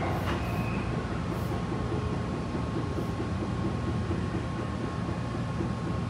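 Interior running noise of a Tobu 9050 series commuter train's unpowered cab trailer car: steady wheel-on-rail rumble with a faint steady high tone, as the train pulls into a station.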